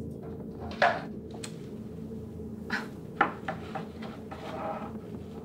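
A few light knocks and clatters from a toy dollhouse being handled on a kitchen counter, the sharpest about a second in and several more around three to four seconds in, over a low steady hum.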